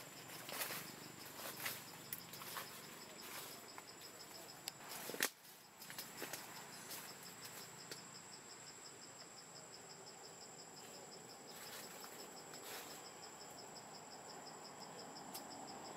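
Forest insects chirring steadily: a constant high whine with a fast, even pulsing note beneath it. Scattered light clicks and rustles come through, with one sharp click about five seconds in.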